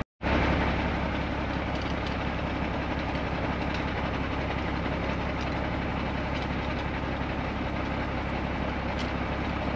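Mercedes-Benz Unimog U1700L truck's diesel engine running steadily.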